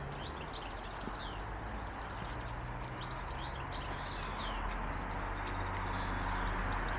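Small birds chirping and singing, many short high calls throughout, over a steady low outdoor background rumble that grows slightly louder in the second half.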